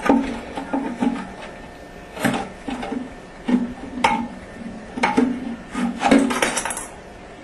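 Hard parts being handled and worked inside a toilet tank: a string of irregular knocks, taps and scraping sounds, busiest near the end.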